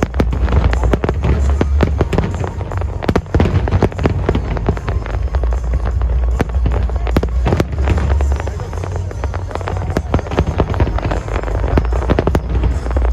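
Fireworks display: many sharp cracks and pops in quick succession over a continuous low rumble.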